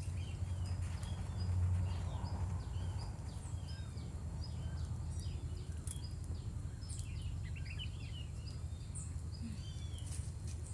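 Outdoor ambience: small birds chirping in short repeated notes over a steady low hum.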